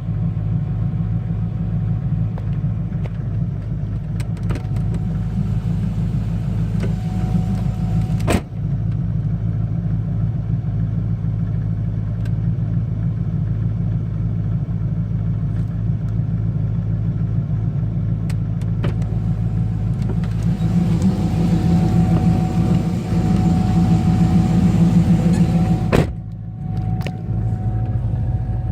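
Inside the cabin of a C5 Corvette Z06 under way: a steady engine and road drone with a thin, steady whine running through it, which gets louder for several seconds near the end. The cause of the whine is unknown. A sharp click comes about eight seconds in and another near the end, after which the sound briefly drops.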